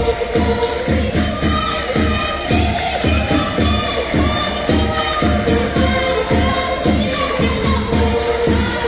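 Live Portuguese folk music for a dance: several voices singing together over stringed instruments, with a steady low beat and jingling percussion in time.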